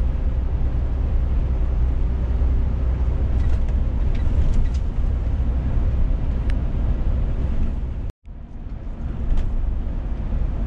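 Scania S500 truck heard from inside the cab while cruising on the highway: a steady low engine drone with tyre and road noise. The sound cuts out for a moment about eight seconds in, then carries on.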